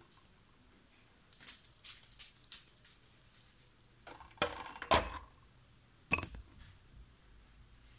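Phone handling noise: the microphone rubbing and knocking against clothing. A run of short scrapes and clicks starts about a second in, louder rubbing follows about halfway through, and one sharp knock comes near the end.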